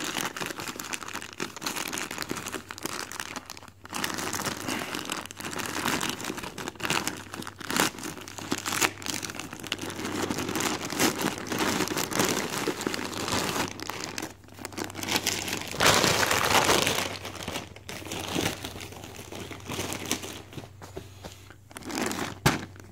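Plastic poly mailer crinkling and rustling as it is pulled open by hand and a plastic-wrapped garment is drawn out of it, with a louder stretch of crinkling about sixteen seconds in.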